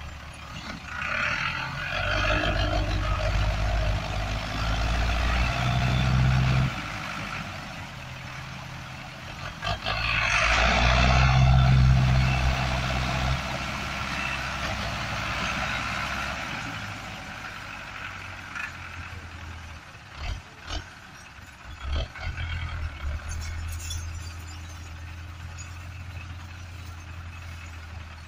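Diesel engines of two farm tractors, a Massey Ferguson 385 pulling and a Belarus pushing, working hard under the load of a heavily laden trolley. The engines surge loudly twice, early on and again around the middle, then settle to steadier running, with a few short knocks later on.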